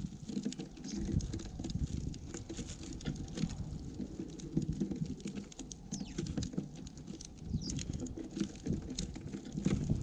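Small birds feeding at a bird feeder right beside the camera: irregular taps and clicks of beaks pecking seed and feet on the feeder, over a constant low knocking.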